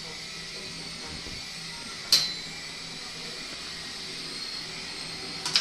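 RC helicopter's motor and rotor running with a steady high-pitched whine. A sharp click about two seconds in and another near the end.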